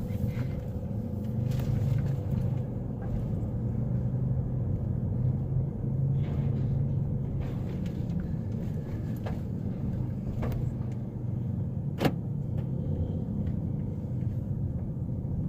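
Steady low engine rumble with a faint steady hum above it, a few light knocks, and one sharp click about twelve seconds in.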